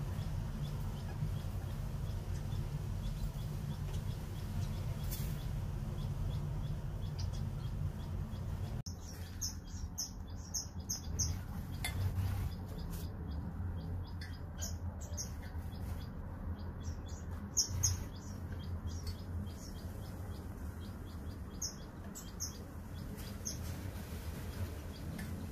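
King quails chirping: short high chirps in quick clusters, mostly from about nine seconds in, over a steady low background hum.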